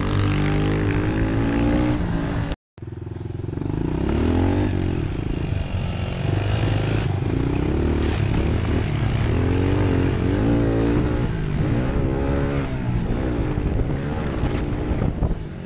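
Onboard sound of a Honda CRF110F pit bike's small four-stroke single-cylinder engine, revving up and falling back again and again as the bike is ridden around the track. The sound cuts out completely for a split second about two and a half seconds in.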